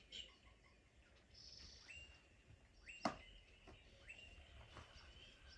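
Faint electronic chirping, bird-like tones from the FurReal My Stylin' Pony toy's speaker, a 'magical' sound effect, with a sharp click about three seconds in.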